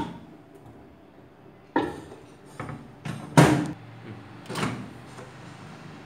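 Microwave oven door and a glass bowl being handled: a few separate knocks and clunks, the loudest about three and a half seconds in.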